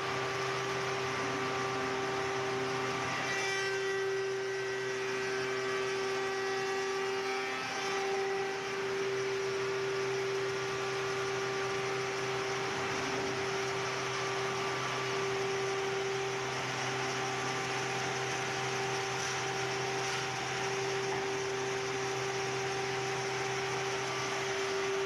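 A Unique door-making shaper running steadily: a constant machine hum with a strong steady tone over a hiss as a wooden door panel is run along the arched template guide to shape its arched edge.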